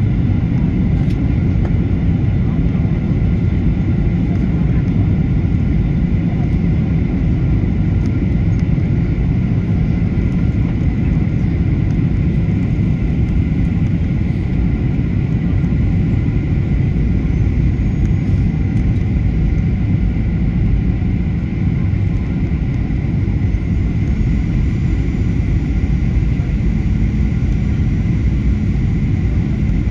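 Cabin noise of a Boeing 737-800 on descent, heard from a seat over the wing: the CFM56-7B engines' steady low roar mixed with rushing airflow, and a thin steady whine above it.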